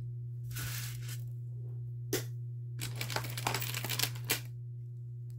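Rustling and crinkling as hands handle costume jewelry and its packaging, with a sharp click about two seconds in and another just past four seconds, over a steady low hum.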